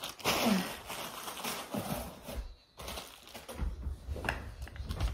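Handling noise from the parts and packaging of a plastic phone vlogging grip: a loud rustle in the first second, then scattered light clicks and knocks as the pieces are moved and fitted.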